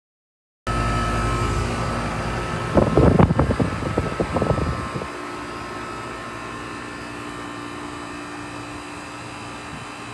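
2004 Amana Distinctions outdoor air-conditioner condensing units running, a steady fan-and-compressor hum with a steady whine. Around three to five seconds in, a burst of rough, irregular rumbling rides over it, and after that the hum continues more quietly.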